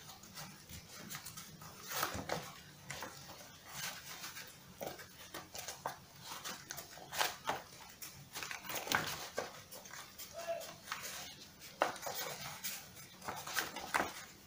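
Fingers rubbing and pressing on a BCD's nylon fabric, making irregular scratchy rustles and light taps. A brief squeak sounds about ten seconds in.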